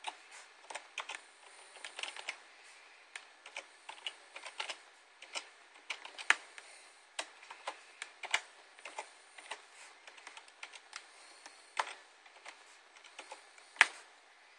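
Computer keyboard being typed on, one key at a time at an irregular, unhurried pace, as an email address is entered. A few keystrokes land much harder than the rest, the hardest near the end.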